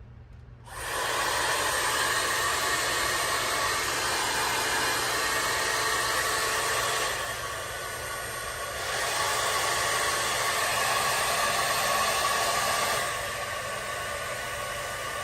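MINFEL 4-in-1 hot air brush (hair dryer brush) switched on about a second in, its fan blowing with a steady rushing whirr. Twice the whirr drops to a quieter level for a couple of seconds and comes back up, as the brush is switched between its fan settings.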